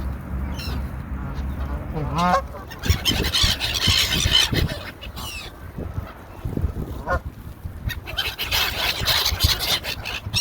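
Canada geese honking, with seagulls calling among them, as the birds feed. Separate calls come every second or two.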